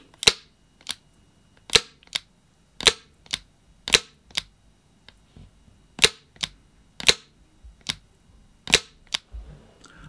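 Tanaka Colt Python gas airsoft revolver fired repeatedly with no silencer and no BBs loaded, muzzle right at the microphone: sharp pops about one to one and a half seconds apart, each followed a fraction of a second later by a fainter click.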